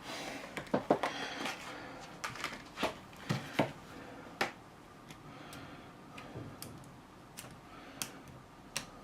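Irregular small clicks and taps of hands working the spring-clipped collar off a ratchet screwdriver, busier in the first few seconds and sparser toward the end.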